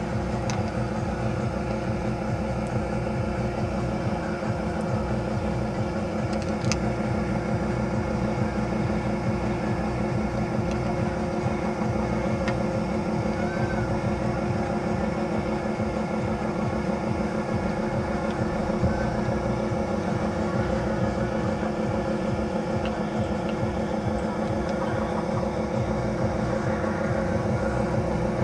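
Steady mechanical drone that holds even throughout, with a few faint clicks.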